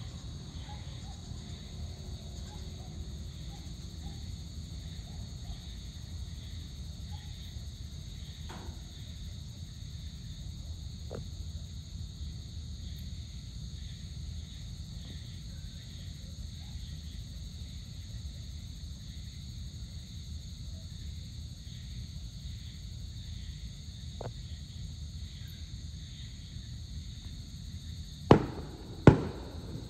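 Evening insect chorus, a steady high-pitched trill, over a low steady rumble. A few faint distant pops sound now and then, and near the end come two loud, sharp bangs about a second apart.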